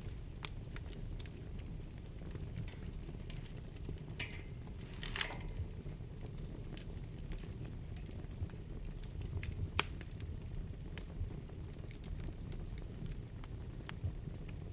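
Wood fire burning in a fireplace: a steady low rumble of flames with irregular crackles and pops, a brief hiss about four to five seconds in, and one sharper pop near ten seconds.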